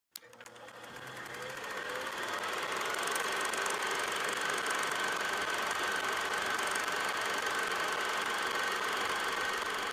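Film projector running: a fast, even mechanical clatter with hiss and a steady high whine, fading in over the first two seconds or so.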